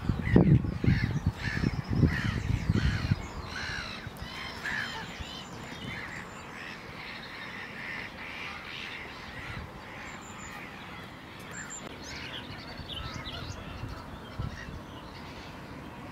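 Birds calling: many short, repeated calls all through. Low thumps in the first three seconds are the loudest sound.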